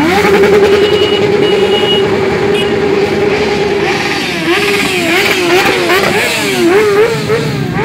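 Motorcycles riding past in a group. One engine rises and holds a steady high note for about four seconds, then from about halfway through engines are revved up and down in quick throttle blips.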